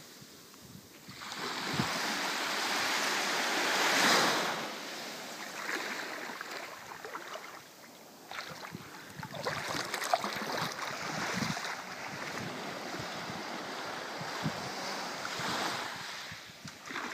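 Small sea waves washing up onto a sandy beach, one surge building to its loudest about four seconds in, then an uneven, lapping wash.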